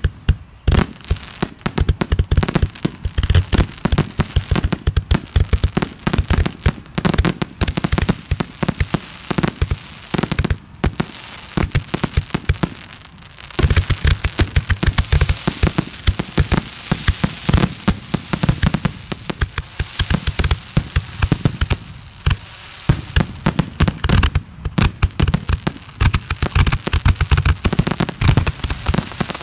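Aerial fireworks finale: a rapid, near-continuous barrage of shell bursts and launches with crackling between, easing briefly about halfway through before picking up again.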